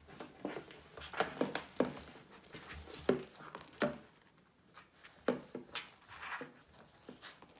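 Kitten scrabbling and batting a ball inside a cardboard box: irregular knocks, thumps and scrapes on the cardboard, in quick clusters with short pauses between.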